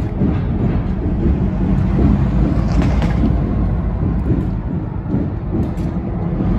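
Union Pacific local's diesel locomotives running, a deep steady rumble.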